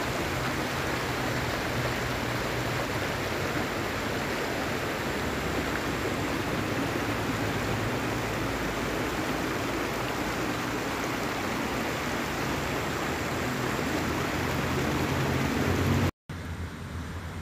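Steady outdoor rushing noise with a deep rumble. It breaks off sharply about sixteen seconds in and comes back quieter and thinner.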